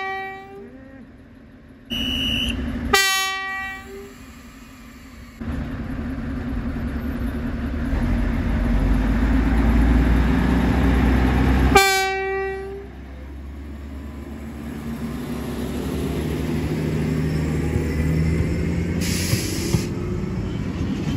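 An Ikawa Line train's DD20 diesel locomotive sounding short horn blasts, about three and twelve seconds in, as the train passes. The diesel engine's low rumble and the coaches rolling by build up and run on, with a brief hiss near the end.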